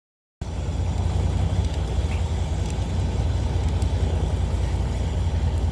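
Fishing boat's engine running with a steady low drone. The sound cuts in abruptly about half a second in, after a total dropout.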